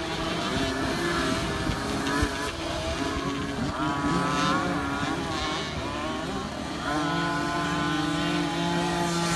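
Several 50cc two-stroke motocross bikes racing around the track, their engines revving up and down and overlapping, with one held at steady revs from about seven seconds in.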